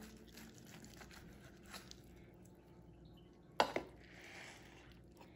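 Chef's knife sawing through a smoked rib roast on a plastic cutting board, faint, with one sharp knock about three and a half seconds in.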